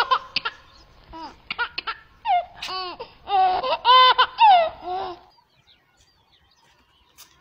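High-pitched laughter in a run of short peals that swoop up and down in pitch, stopping about five seconds in.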